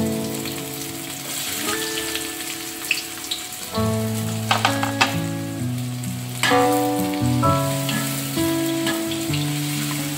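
Food frying and sizzling in a pan, a steady hiss with scattered crackles and a few sharper clicks about halfway through, under background music with held notes.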